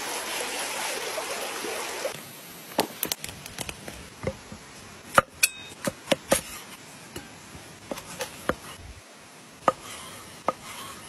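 Creek water rushing for about two seconds, then a broad cleaver-style knife chopping a vegetable on a wooden board in sharp, irregular knocks.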